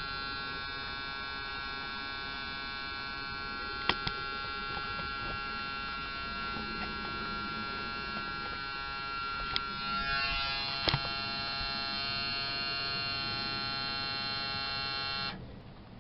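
Small electric pump motor on a 1/14-scale RC tanker truck running with a steady whine, with a few sharp clicks. Its tone changes about ten seconds in, and it cuts off suddenly near the end.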